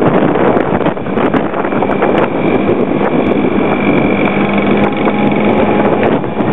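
Motor scooter engine running steadily while riding, with wind rushing over the microphone.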